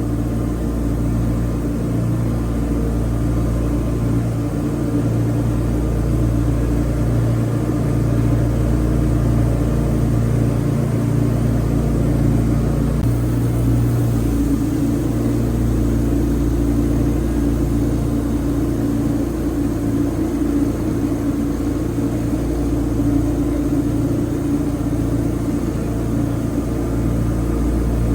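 Wood-Mizer LT40 band sawmill running steadily, its engine droning while milling pine logs into 2x6 and 2x8 boards, with a slight change in its note about halfway through.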